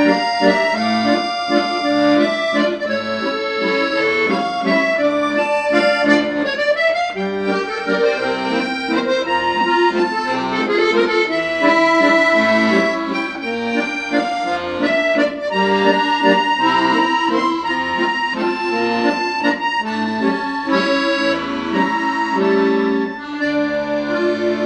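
Accordion music: a melody over held chords.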